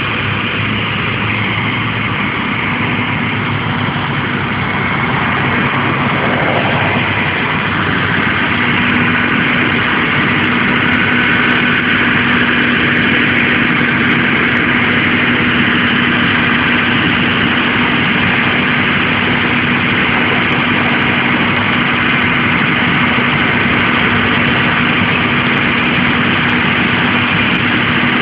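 Fire ladder truck's diesel engine running steadily at idle, a low, even drone that grows louder over the first several seconds and then holds.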